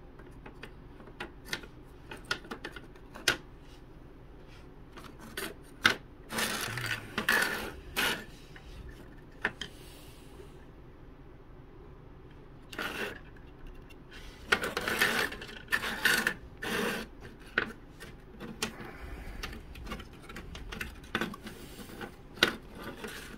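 Thin laser-cut wooden model-kit parts being handled and pressed into their slots: scattered sharp clicks and light taps, with a few short stretches of rubbing and scraping of wood on wood.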